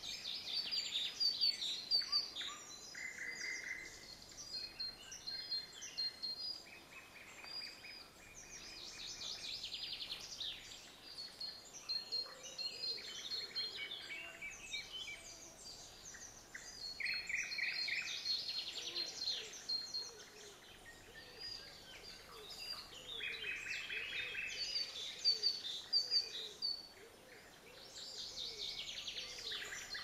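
Several songbirds singing in woodland, their songs overlapping: repeated high phrases and quick rattling trills, one after another with hardly a pause.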